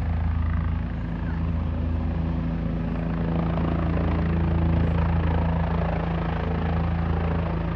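Helicopter running steadily: an even, low drone of engine and rotor that holds the same pitch throughout.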